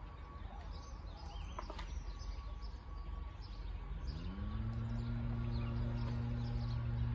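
Small birds chirping over a low outdoor rumble. About four seconds in, a low hum starts, rises in pitch and then holds steady, becoming the loudest sound.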